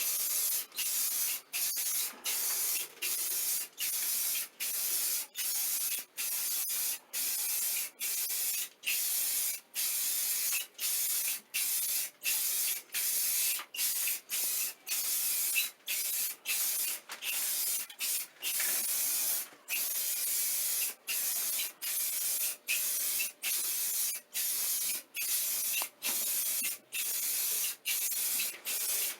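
Aerosol spray can of clear oil-based enamel sprayed in short, quick hissing bursts, about one and a half a second, sealing water stains on a ceiling.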